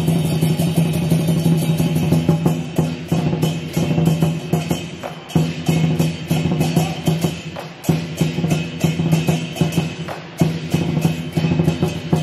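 Chinese dragon-dance percussion: a large drum beaten in a quick, driving rhythm with clashing cymbals ringing over it.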